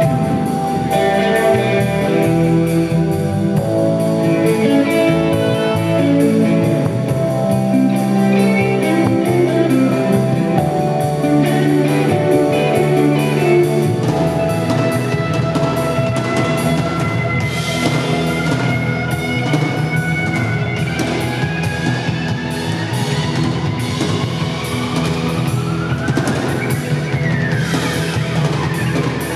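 Live rock band playing an instrumental passage on electric guitar, keyboards and drum kit, with no singing. Near the end several sliding tones rise together.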